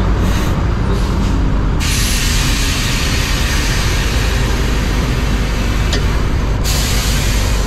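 Heavy-haul Peterbilt 389 rig pulling a loaded lowboy trailer, a steady low rumble of the truck and its tyres heard from the trailer. A loud hiss starts about two seconds in and cuts off suddenly near the end.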